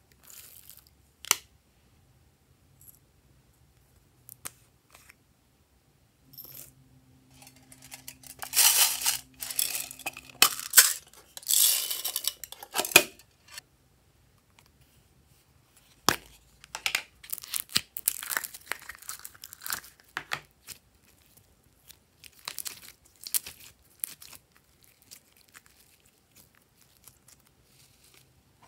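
Handling noises from plastic slime containers and lids, with small beads, sequins and glitter shaken out into glass trays. Scattered clicks lead into two long stretches of crinkling and rattling, one in the first half and one in the second.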